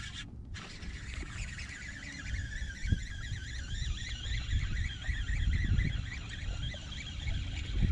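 Fishing reel cranked steadily during the fight with a hooked small smallmouth bass, a whirring that wavers in pitch with the cranking, over low rumble and handling knocks.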